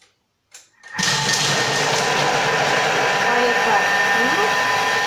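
Thermomix chopping quartered onion at speed 5: the motor and blades start about a second in with a loud, steady whir and run for about five seconds.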